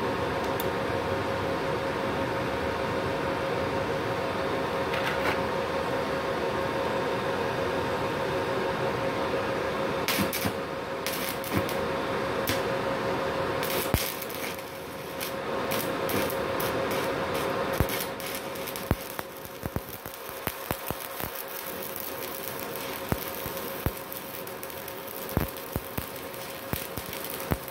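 Stick (MMA) arc welding with a MultiPro MMA 120 G-KRK inverter welder: a steady hiss of the arc with a held tone, broken by sharp crackles from about ten seconds in. After about eighteen seconds the steady hiss drops away, leaving sparse sharp crackles and pops.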